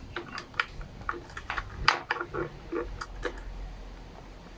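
Small plastic clicks and taps from hands working a new rubber fuel line into a trimmer's fuel tank, a dozen or so irregular ticks over about three seconds, then quieter.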